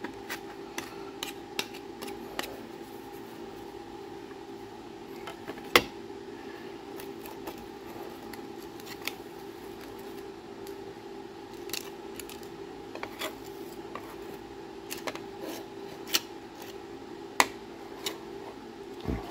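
A sheet-metal patch panel scraping and clicking against a mixing board as its edge is wiped through grey two-part panel adhesive. Scattered sharp ticks sit over a steady low background hum.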